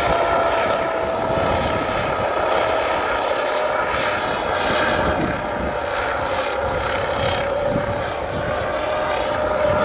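Small unmanned aircraft's propellers running steadily in flight under full payload, a continuous hum whose pitch drifts only slightly.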